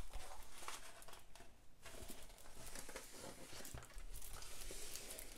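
Crinkling and rustling of a diamond painting canvas and its clear plastic cover film as it is unrolled and handled, with irregular small crackles and taps.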